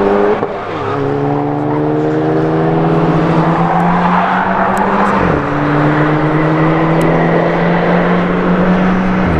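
Car engine accelerating hard out of a corner, its pitch climbing steadily through the gears with upshifts about half a second in and about five seconds in.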